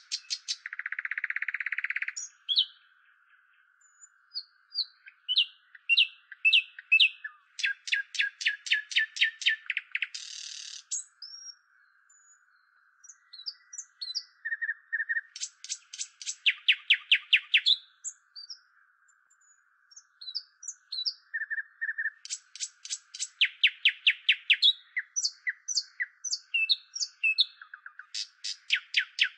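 A songbird singing: runs of rapid repeated notes, about five a second, alternate with varied short whistled phrases, buzzy notes and brief pauses. A faint steady drone sits beneath.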